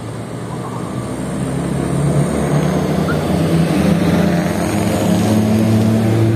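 A bus's diesel engine grows louder over the first two seconds as the bus approaches, then runs steadily close by.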